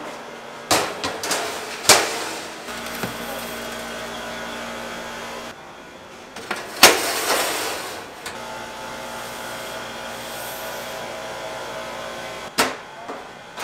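Bakery kitchen work sounds: a handful of sharp knocks and clatters, the loudest about 2 and 7 seconds in, over a steady machine hum.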